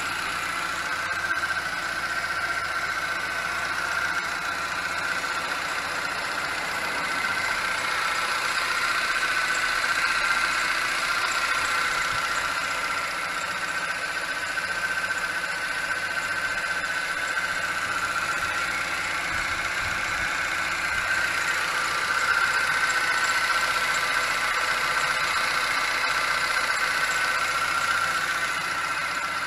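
Ford Streetka's 1.6 four-cylinder petrol engine idling steadily under the open bonnet, with a steady high-pitched whine over the engine note.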